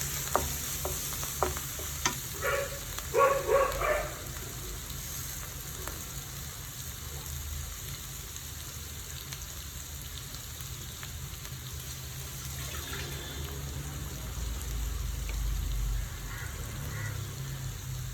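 Crushed garlic, ginger and freshly washed curry leaves sizzling in hot oil in a pan while being stirred, with a few sharp clicks early on. A short run of louder pitched sounds comes between two and four seconds in.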